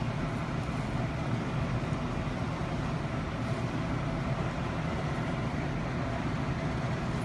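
Steady background noise with most of its weight low, holding even throughout, with no distinct clicks or knocks.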